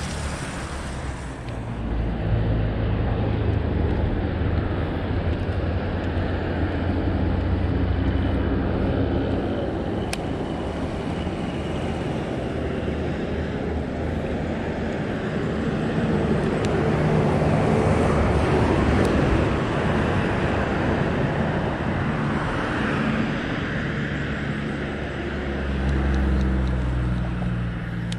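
Road traffic: vehicles passing close by, their engine and tyre noise swelling and fading over a steady outdoor rumble, loudest about two-thirds of the way through and again near the end.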